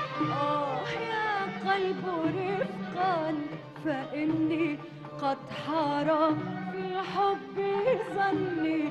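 Live Arabic song performance by a large Arab orchestra with strings: ornamented, wavering melodic lines over a steady low accompaniment.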